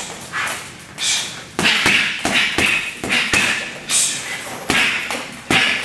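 Boxing gloves punching a hanging heavy bag: a run of about ten dull thuds at an uneven pace, one or two a second.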